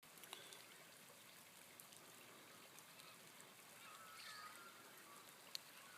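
Faint sound of a small rain-fed winter creek running, with a few faint chirps from birds about two-thirds of the way through.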